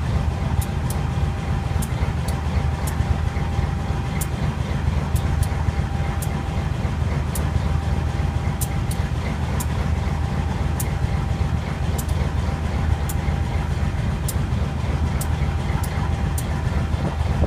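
GE U23B locomotive's 12-cylinder FDL diesel engine idling after a cold start: a steady deep rumble with a thin constant whine above it and scattered sharp ticks.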